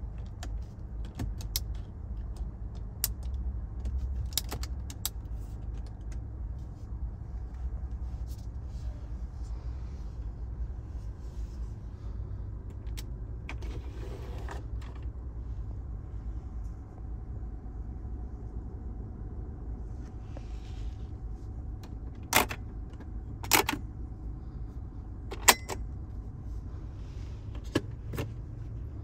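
Sharp plastic clicks of car interior trim being worked by hand: a center-console storage cover sliding with a short rustle about halfway through, then four or five crisp latch clicks from the console cover and armrest lid in the last few seconds. A steady low rumble runs underneath.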